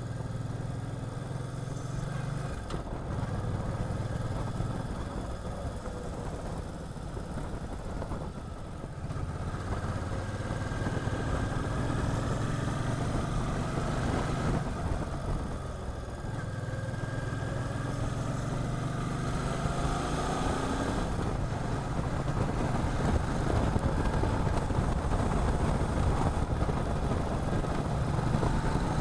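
Motorcycle engine running while riding, with wind rush over it. The engine drone breaks off and picks up again several times, and it grows louder toward the end.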